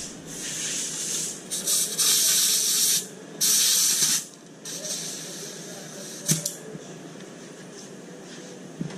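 Compressed air hissing in spurts from a shop air hose as it pressurizes a rebuilt valve body through a gauge fitting for a leak test, toward 100 PSI. The two loudest spurts, each about a second long, come two to four seconds in, with weaker ones after, then a sharp click a little after six seconds.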